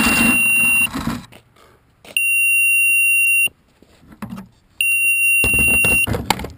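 Electronic buzzer on the quadcopter beeping a steady high tone, each beep about a second and a half long and repeating about every two and a half seconds. The motors run down and stop within the first second, and a clatter of handling comes near the end as the upturned drone is turned back over.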